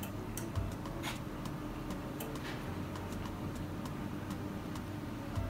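Scattered light clicks and ticks of plastic forks against foam takeaway boxes while eating, over a steady low hum.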